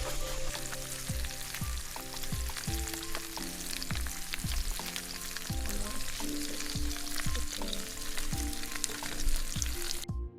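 Lo-fi background music: soft held notes over a steady beat, with a constant crackling hiss under it. It cuts out briefly near the end.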